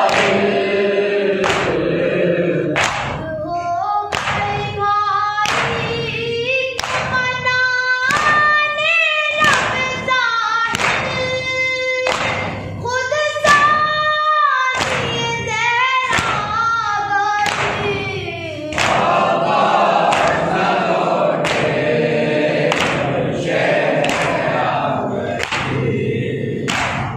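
A boy's voice reciting a noha, a Shia mourning lament, into a microphone, with mourners chanting along at the start and through the last third. Under it runs a steady beat of thumps about once a second: mourners beating their chests in matam.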